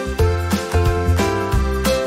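Instrumental background music: a melody of held notes over a bass that pulses about twice a second.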